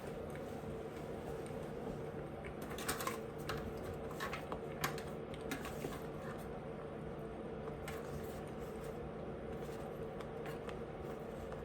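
Eating sounds: a cluster of small, sharp clicks and taps about three to six seconds in, a few more later, over a steady low hum.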